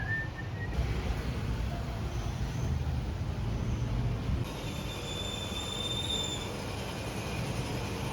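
Steady low vehicle rumble, with a few thin high-pitched squeals laid over it in the second half.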